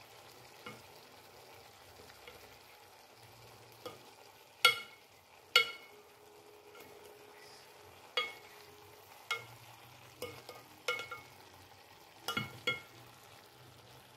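Vegetables being stir-fried in a granite-coated pan: a spatula knocks against the pan about eight times with short ringing clanks, the two loudest a little before the halfway point, over a faint steady sizzle.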